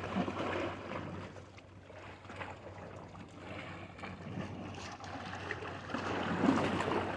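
Shore ambience of sea waves washing and wind, in uneven swells, over a faint steady low hum.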